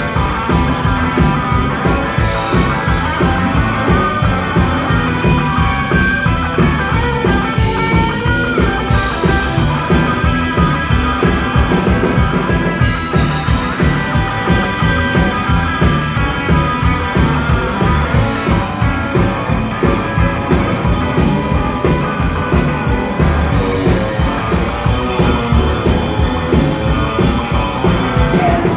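Rock and roll band playing live: electric guitars over a steady drum beat.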